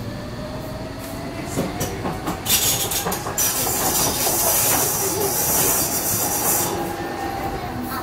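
Docklands Light Railway B07 stock train running, heard from inside the passenger car: wheel-and-rail running noise with a whine that slowly climbs in pitch. A loud hiss comes in about two and a half seconds in and lasts about four seconds.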